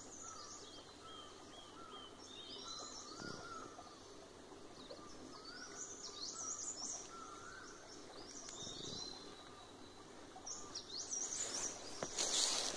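Small forest birds chirping and singing in short repeated phrases over a faint steady background hiss, with a brief burst of louder noise near the end.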